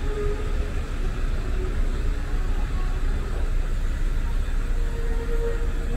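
Street traffic noise: a steady, uneven rumble of cars on a city road, heaviest in the low end.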